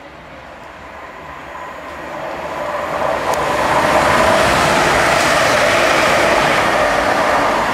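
Class 380 electric multiple-unit train approaching and passing close at speed. Its running noise builds over about four seconds to a loud, steady rush as the carriages go by.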